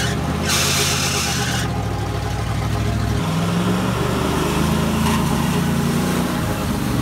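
1980 Dodge W200 Power Wagon's V8 engine running as the truck drives through mud, its note stepping up about three seconds in. Two short bursts of hiss come in the first second and a half.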